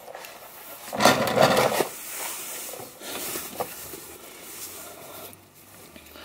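Handling noise of plastic car interior trim: a loud scraping rustle about a second in, then softer rubbing and a few small clicks as a hand works at the underside of the dashboard.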